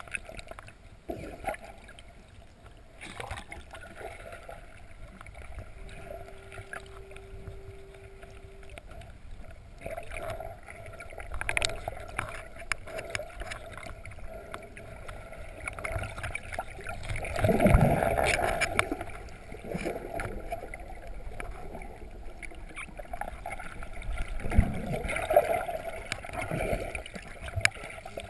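Muffled underwater noise heard through a GoPro's waterproof housing as a free diver swims: a steady rushing bed of water sound, with louder surges of water movement about seventeen seconds in and again near the end.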